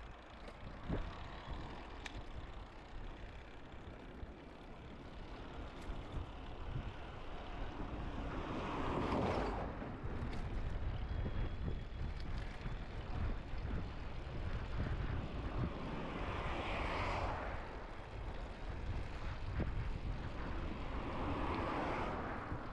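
Wind on the microphone and low rumble while cycling along a road. Three passing vehicles rise and fade in turn: about a third of the way in, past the middle, and near the end.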